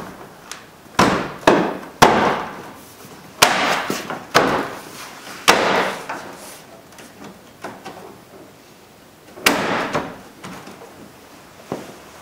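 Chrome front grille bar of a Chevrolet Equinox being pressed back on by hand, its plastic clips snapping into place: a series of about eight sharp, irregular knocks and snaps, most in the first half and one more near the end.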